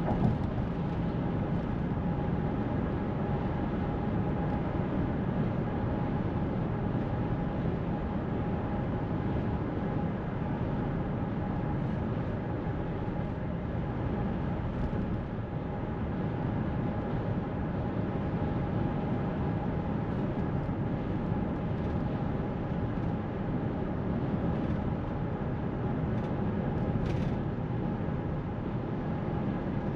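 Steady road noise inside a moving car's cabin: tyres rolling on pavement and the engine at cruising speed, with a faint steady hum.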